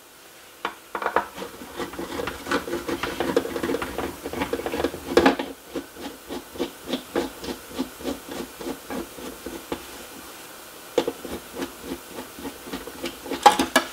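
Hand Phillips screwdriver turning a screw out of a metal intercom door station's faceplate: a run of short, rhythmic scraping turns, about three a second, with brief pauses midway and near the end.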